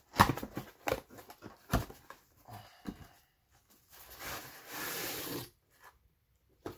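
Cardboard product box being opened and handled: several sharp knocks and scuffs of the flaps and box in the first two seconds, then a longer scraping slide a little after four seconds as the mesh-bagged nested cookware is pulled out of it.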